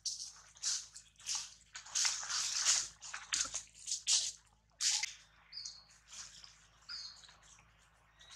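Leaves and twigs rustling and shaking in irregular bursts as a baby monkey climbs through the branches, busiest in the first half. Two short high chirps come in the second half.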